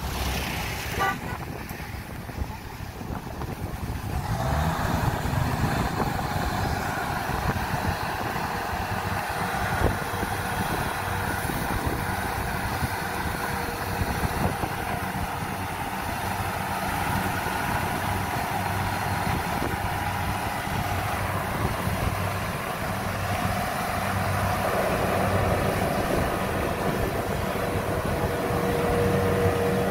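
Kubota DC-70 combine harvester running under load as it cuts rice: a steady engine and machinery drone that grows fuller and louder about four seconds in.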